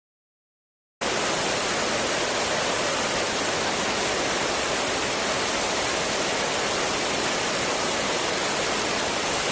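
Rushing water making a steady, even roar that starts abruptly about a second in.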